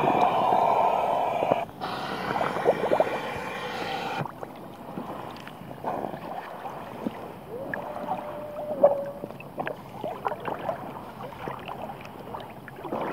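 Seawater sloshing and lapping around a camera held at the water's surface as a scuba diver moves along the surface. It is louder for the first four seconds, then softer, with small splashes and a short tone about two-thirds through.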